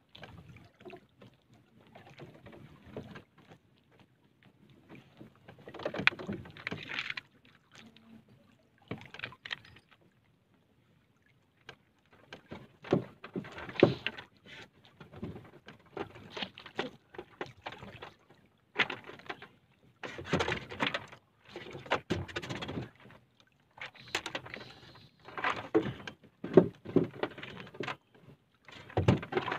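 Irregular knocks, clatter and splashes from gear being handled in a small wooden fishing boat on the water, coming in uneven clusters with a brief quiet spell about ten seconds in.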